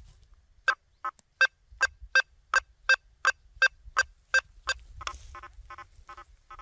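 Quest V80 metal detector with a 9-inch coil giving a rapid series of short beeping target tones, about three a second, as it is swept over a nailboard separation test. About five seconds in the tone changes to a lower, buzzier pitch.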